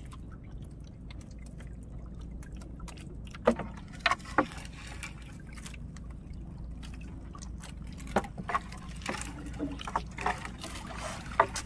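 Water trickling and splashing off a wet fishing net as it is hauled over the side of a small boat, with scattered sharp clicks and knocks, more of them in the second half, over a steady low rumble.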